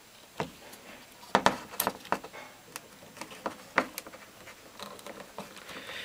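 Irregular small clicks and taps of wire being worked with the fingers into a pressure switch's plastic terminal block, the sharpest a little over a second in.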